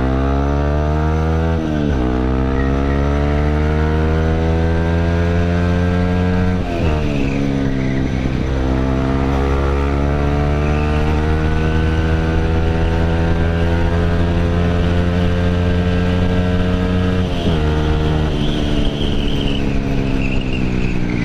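Yamaha WR155's single-cylinder four-stroke engine through a GP7 Max 4.1 aftermarket exhaust, pulling hard under full acceleration. Its pitch climbs in each gear and drops sharply at each of three upshifts, with wind rush over it.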